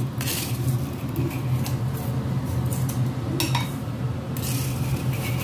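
A utensil scooping and scraping coarse rock salt in a metal wok, gritty scrapes and clinks against the pan in several short bursts, as the baked salt crust is broken away from a salt-baked chicken. A steady low hum runs underneath.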